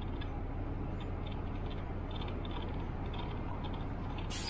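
City bus standing still with its engine idling, heard from inside: a steady low rumble with faint ticking about twice a second. Near the end comes a sudden loud hiss of air, typical of the bus's air brakes or doors venting.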